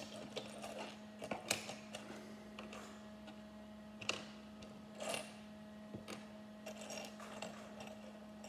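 Small plastic Lego minifigure pieces clicking and clattering on a wooden tabletop as they are picked up and fitted together, in irregular clicks. A steady low hum runs underneath.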